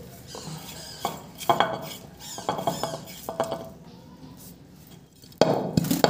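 Painted clay feed bowl knocking and scraping on a hard floor in a series of separate clatters, some with a short ring. A louder, longer scrape comes near the end.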